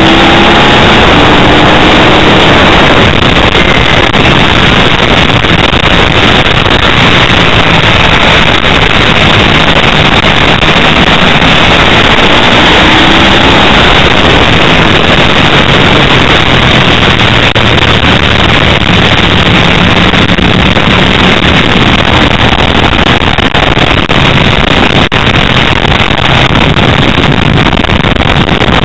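Onboard sound of a Ducati 888's V-twin engine at racing speed, its pitch rising and falling with the throttle, buried under heavy wind rush on the microphone; the recording is overloaded, near full scale.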